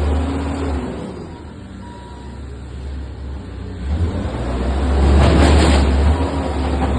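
Diesel engine of a heavy demolition machine such as a JCB running, easing off in the middle and then working harder from about four seconds in, with a loud burst of clattering noise around five seconds in. A single short reversing beep sounds about two seconds in.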